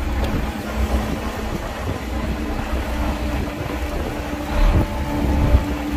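Heavy diesel machinery engine running with a low rumble and a hum that comes and goes, with wind buffeting the microphone.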